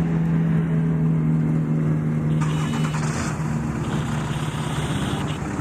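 Off-road race vehicle's engine running at low speed, a steady low engine note. A short burst of hiss cuts in about halfway through.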